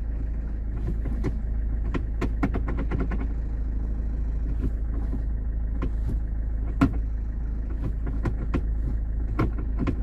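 Citroën Xsara Picasso idling, with irregular ticking and rattling from the manual gear lever, a 'tak tak tak' that the owner says stops when the lever is held. The mechanic puts it down to play in the gear lever's inner ball joint.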